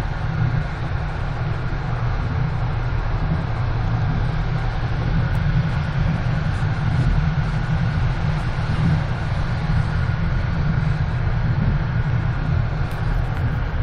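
Passenger train carriage in motion, heard inside its compartment: a steady low rumble of wheels on rails and carriage running noise, with no marked changes.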